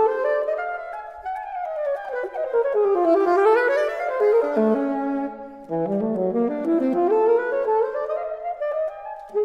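Solo alto saxophone playing fast runs of notes that climb and fall, with a brief break a little past halfway before a new run starts low and climbs.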